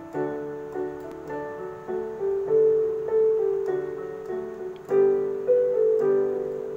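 Slow instrumental introduction on a piano-like keyboard: a melody of notes struck about twice a second, each fading, over held lower notes, leading into a sung poem.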